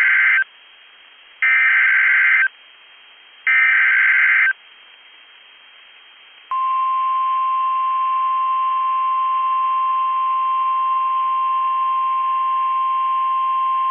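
Emergency Alert System SAME header: three one-second bursts of digital data tones, about two seconds apart. A couple of seconds of quiet follow, then a single steady alert tone starts about six seconds in and holds: the NOAA Weather Radio warning alarm that announces a new warning.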